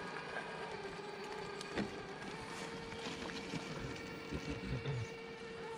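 Radio-controlled scale crawler's electric motor and gears whining steadily as it crawls, with a sharp knock about two seconds in and a few low thumps near the end.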